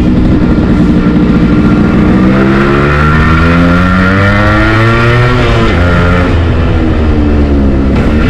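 Yamaha RX100's 98 cc single-cylinder two-stroke engine pulling under acceleration. Its pitch climbs for a few seconds, drops sharply about five and a half seconds in, then holds steady, with another brief dip near the end.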